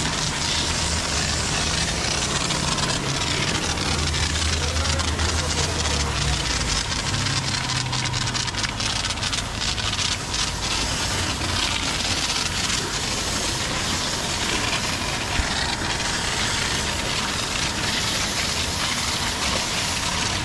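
Car-wash pressure washer running, its motor humming low with a steady hiss of spraying water over it.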